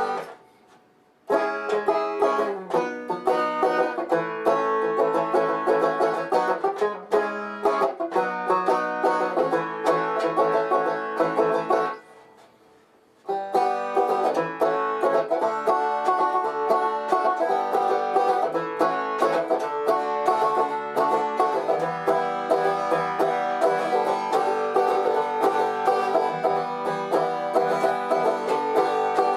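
Banjo playing a fast run of plucked notes and chords, with two short pauses, one about a second in and one about twelve seconds in.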